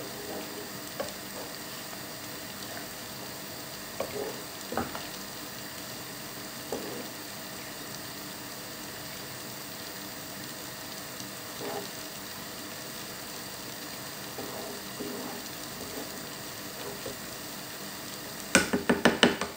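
Wooden spoon stirring misua soup in a metal pot over a steady hiss from the simmering soup, with a few soft knocks of the spoon against the pot. Near the end, a quick run of sharp knocks as the spoon is tapped on the pot's rim.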